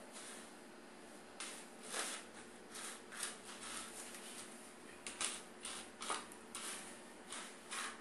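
Plastic litter scoop stirring and raking cat litter mixed with raw cassava flour in a plastic tray: a series of short, irregular scraping rustles of loose granules.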